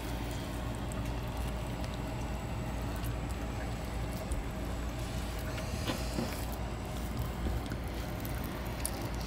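Fillet knife slicing the bloodline out of a raw kingfish fillet, with a few faint clicks of the blade against the cutting board, over a steady low rumble.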